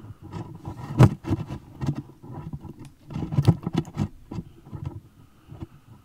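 Irregular knocks, taps and rubbing: handling noise of a phone being moved around inside a dishwasher's plastic detergent tank.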